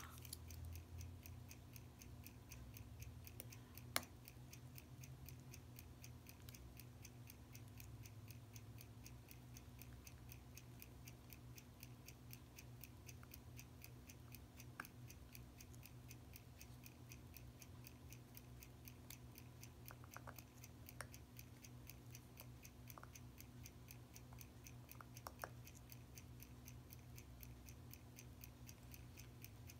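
Faint, fast, even ticking of a mechanical timepiece, with a sharp click about four seconds in and a few lighter clicks later from small metal parts being handled.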